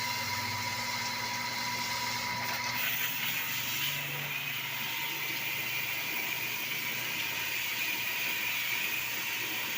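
Steady mechanical hum with an even hiss and a few held tones, like a machine running.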